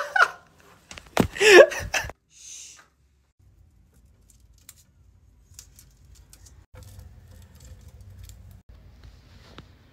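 A woman's voice for about a second near the start. Then faint scattered clicks and light rustling from hands pressing small pads onto the plastic bumpers of a toilet seat, over a low hum.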